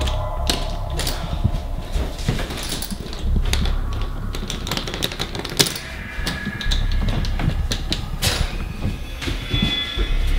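Hands handling things on a kitchen counter: irregular clicks and knocks over a steady low rumble.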